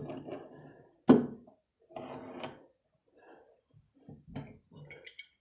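Soft, short scratching of a pencil tracing around a metal electrical box held against drywall, with a sharp tap about a second in.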